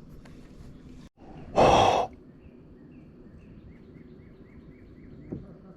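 A person's loud sigh, a single exhaled breath about half a second long, a second and a half in.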